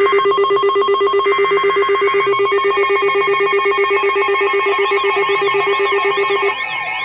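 NOAA weather alert radio sounding its tornado warning alarm: a loud, fast-pulsing electronic tone that cuts off about six and a half seconds in. A second, warbling alarm tone that sweeps up and down comes in shortly before that.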